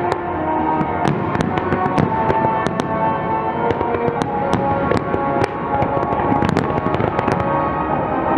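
Fireworks popping and crackling in quick, irregular bursts over loud music playing with the display.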